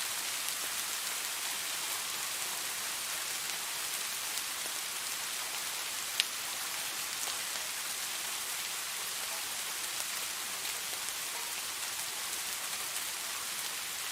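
Steady rain, an even hiss with scattered drops ticking and one sharper drop hit about six seconds in.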